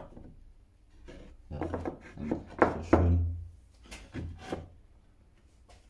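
Sawn wooden panels being handled on a workbench: boards rubbing and knocking against each other as they are stood up and fitted together, with a few sharper wooden knocks about two and a half to three seconds in.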